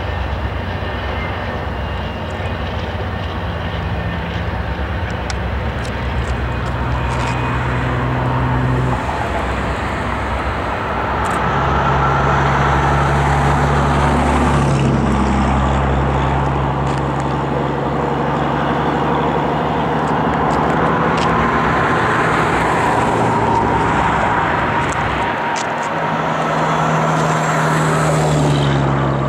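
Low, steady drone of the diesel locomotives on an intermodal freight train, its pitch stepping a few times, mixed with a constant rush of road traffic as several vehicles swish past.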